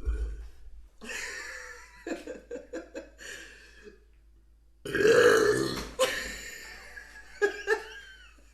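A woman burps long and loud about five seconds in, lasting about a second. Shorter, softer throaty vocal sounds come before and after it.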